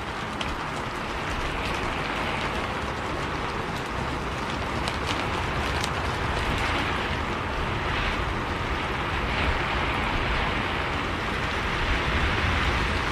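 Steady rain heard from inside a moving bus: an even hiss of rain with a low vehicle rumble underneath and a few sharp drop ticks.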